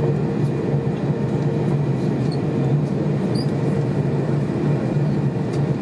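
Steady cabin rumble and hum of an Airbus A321 taxiing with its engines at idle, with a few faint ticks near the end.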